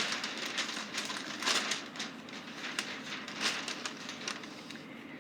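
Paper or card being handled: scratchy rustling and scraping in irregular bursts that die away near the end.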